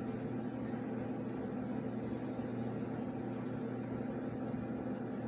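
Steady low hum with a hiss over it, with one faint click about two seconds in.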